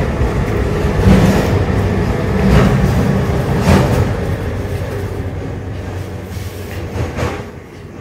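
Close-miked chewing of a bite of a turkey breast sandwich on a crusty roll with lettuce: a dense, wet mouth rumble with a few louder crunches, easing off near the end.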